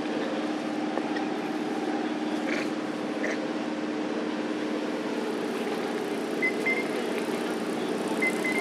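An engine running steadily, a continuous drone with a few short high chirps over it late on.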